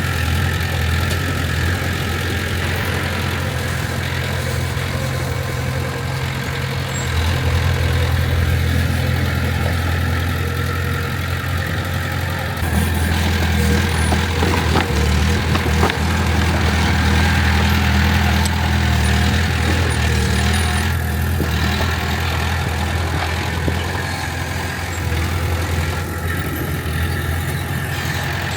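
Heavy diesel earthmoving machinery engine running steadily, its note and load stepping up twice partway through.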